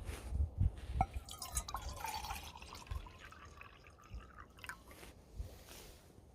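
Wind buffeting the microphone, with a sharp click about a second in followed by brief trickling and dripping of water.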